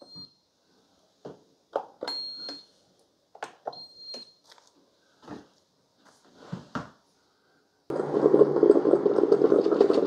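Ninja drip coffee makers being started: button presses with scattered clicks and three short high beeps. About eight seconds in, the brewers start brewing with a loud, steady running noise.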